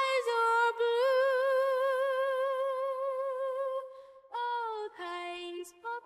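A woman's voice singing unaccompanied, holding one long note with vibrato for about three seconds before starting a new phrase.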